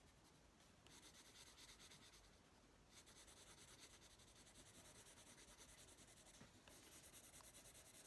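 Faint scratching of a Prismacolor coloured pencil on a colouring-book page, in quick back-and-forth shading strokes that pause briefly twice.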